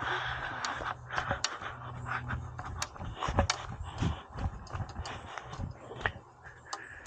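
Footsteps on a bankside path, with irregular knocks and rustles from carried fishing gear.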